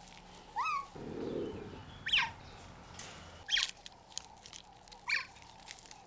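Four high chirping calls about a second and a half apart, each a quick pitch glide with overtones; the first rises and the rest fall. A brief rustle sounds between the first two.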